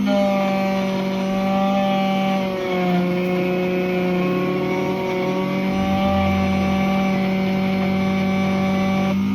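Electric key-cutting machine running with a steady motor hum that dips slightly in pitch about two and a half seconds in and shifts again near the end, as the cutter meets the key blank.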